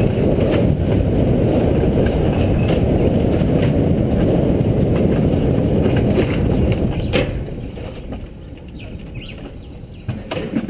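Alpine coaster sled running fast along its metal rail track, a steady loud rumble. About seven seconds in there is a knock and the noise drops sharply as the sled slows and rolls into the station.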